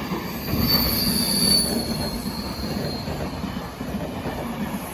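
Passenger train rolling past over the rails, wheels rumbling, with a high-pitched wheel squeal from about half a second in that fades after a couple of seconds.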